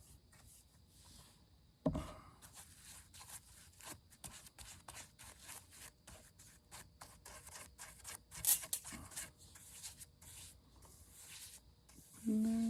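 Irregular scratchy rubbing and scraping strokes of hands working over a piece of wood, with a single knock about two seconds in. Just before the end a low voice starts up with a held, wavering note.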